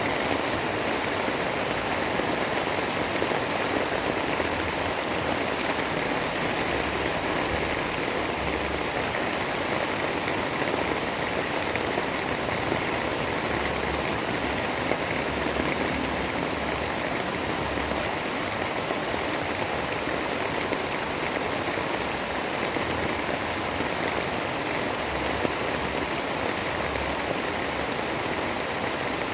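Steady, heavy rain falling, an even unbroken hiss with no distinct drops or breaks.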